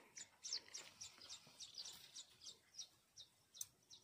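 Faint bird chirping: a quick, even series of short high chirps, several a second, with one sharp click near the end.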